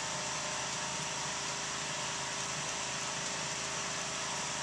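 Steady mechanical drone of a small generator running, with the restored wood stove's electric blower fan that it powers.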